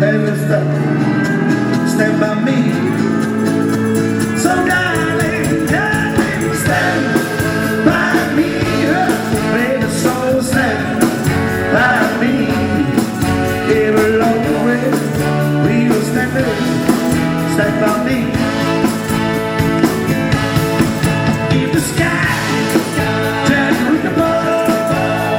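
Live rock and roll band playing a slow ballad, with singing over guitar, bass and drums.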